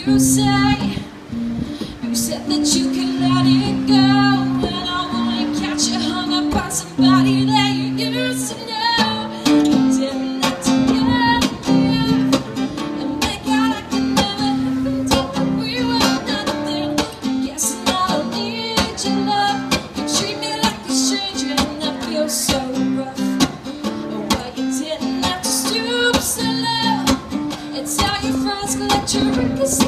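A woman singing live while strumming an acoustic guitar.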